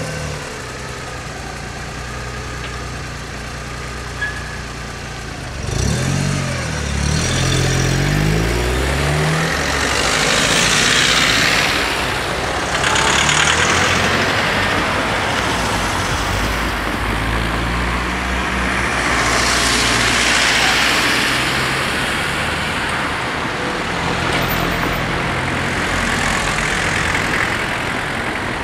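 Cars and vans drive off over the level crossing one after another once the barriers are up. From about six seconds in, an engine revs up as it pulls away, then several vehicles pass close with swells of engine and tyre noise.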